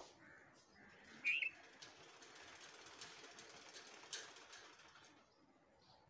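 Bulbul nest sounds: one short, sharp chirp about a second in, then a few seconds of soft rustling hiss with faint ticks as the parent feeds its chicks.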